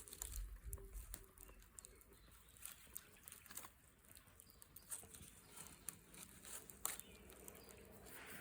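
Faint crackling of a wood bonfire: scattered sharp pops and ticks at irregular intervals, with a brief low rumble in the first second.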